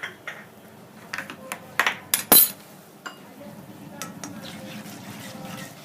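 A metal spoon knocking and clinking against a cooking pan: a run of sharp taps, with the loudest ringing clink about two seconds in.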